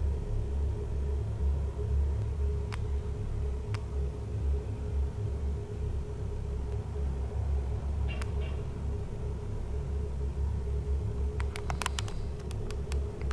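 Steady low rumble with a steady hum, a few single sharp ticks, then a quick run of sharp knocks near the end, heard as banging on a pipe in the wall.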